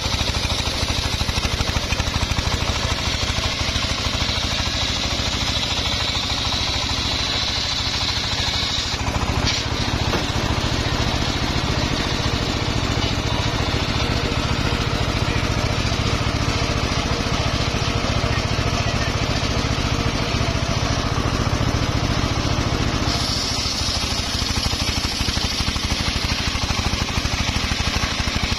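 Homemade engine-driven circular sawmill running steadily while its blade rips lengthwise through a log, with a constant low engine rumble. A high whine sounds for the first third, drops out about nine seconds in, and returns near the end.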